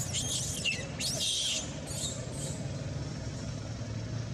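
Long-tailed macaques screaming in a fight: a few shrill, wavering screams in the first couple of seconds, with two shorter ones after, over a steady low rumble.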